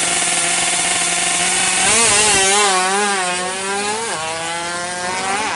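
Two-stroke engine of a 116 cc Yamaha F1ZR drag bike, held at high revs on the start line, then launching about two seconds in and accelerating away. Its pitch wavers on the launch and dips sharply at gear changes about four seconds in and again near the end.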